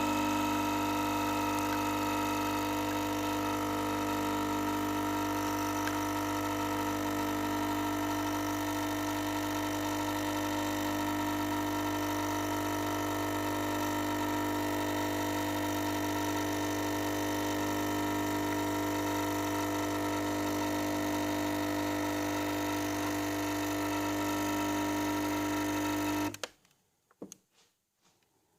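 Nespresso Inissia capsule machine's pump running with a steady buzzing hum as it pushes hot water through a tea capsule, then cutting off abruptly near the end, followed by a couple of faint knocks.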